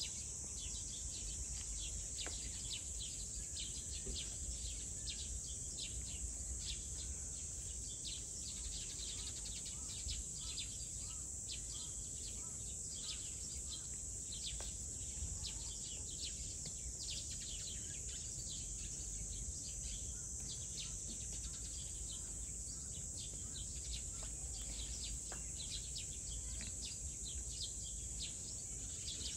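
Outdoor ambience of a steady high insect drone with many short bird chirps throughout, over a faint low rumble.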